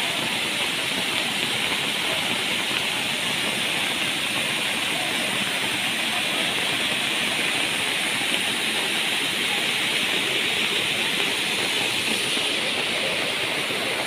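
Steady, unbroken rush of water: heavy rain together with a rain-swollen stream cascading down over rocks.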